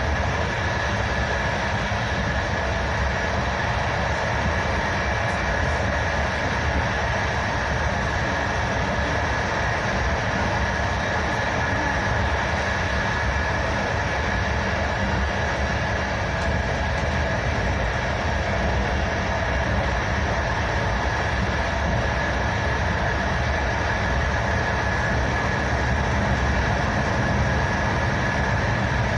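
Passenger train heard from inside the carriage while running at speed: a steady running rumble with a faint constant high whine over it.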